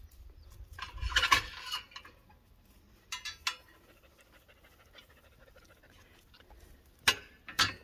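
Steel three-point quick hitch being latched and pinned onto tractor lift arms: a rasping burst about a second in, a few light metal clicks, then two sharp clanks near the end.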